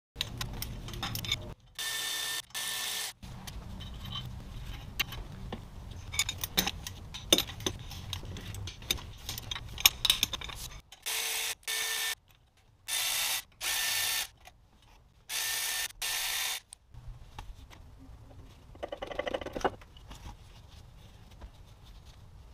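Cordless electric ratchet spinning bolts out of the BMW M54 engine's oil filter housing in short runs, mostly in pairs: two about two seconds in and several more between about eleven and seventeen seconds. Between the runs, metal tools click and clatter against the engine.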